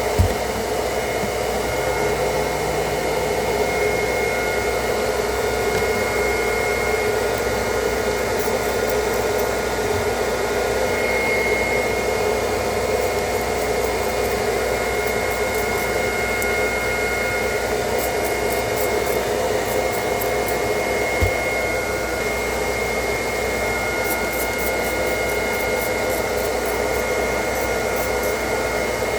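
Steady rushing, hiss-like noise with a faint high whistle that fades in and out, and an occasional light tick.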